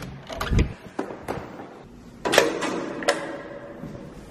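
A few knocks and clicks, then a louder metallic clatter about two seconds in that rings on briefly and fades, and another click: the folding metal scissor gate of an old cage lift being worked.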